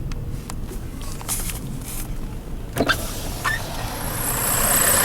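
Semi truck engine running with a steady low rumble and a few sharp knocks. A hiss builds near the end.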